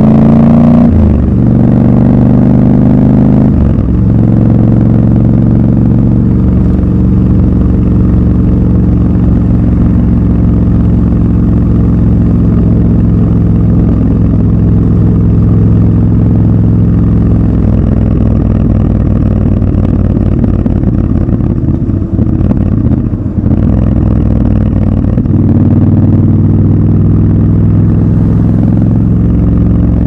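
Triumph Scrambler 1200 XC's 1200 cc parallel-twin engine under way. The note climbs and breaks twice in the first few seconds as the bike pulls up through the gears, then holds a steady cruise. It dips briefly a little past two-thirds of the way through, then picks up again.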